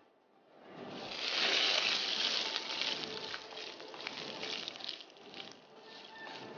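Vermicelli frying in hot oil: a sizzling hiss with crackles that swells sharply about a second in, then slowly eases.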